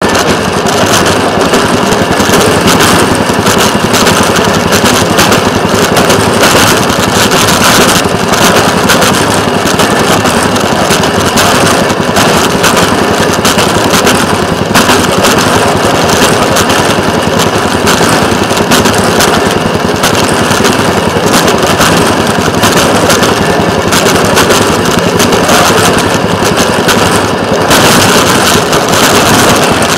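Railroad speeder (track motorcar) running along the rails: its small engine gives a fast, steady clatter that does not let up.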